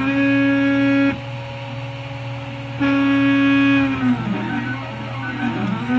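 RepRap MendelMax 3D printer's stepper-driven axes running through print moves: a loud steady tone with many overtones for about a second at the start and again from about three to four seconds in, with rising and falling whines between as the moves speed up and slow down. The loud tone is the Y-axis vibration whose source the owner cannot find; he says it is not the Y carriage itself and the only part common to all his printers is the Y motor.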